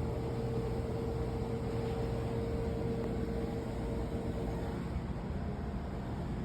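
Steady mechanical hum and hiss, with a steady mid-pitched tone that cuts off about five seconds in.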